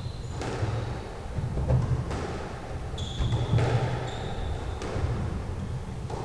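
Squash rally: the rubber squash ball smacked by rackets and hitting the court walls about every second or two, with sneakers squeaking on the wooden floor a few times, sharply near the middle.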